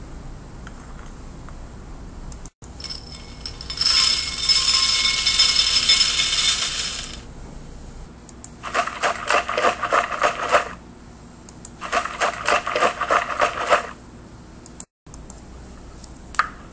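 Dry grains being poured and handled: first a steady rushing pour of about three seconds, then two separate bursts of dense rattling and clicking as handfuls of grains drop into a bowl, each burst about two seconds long.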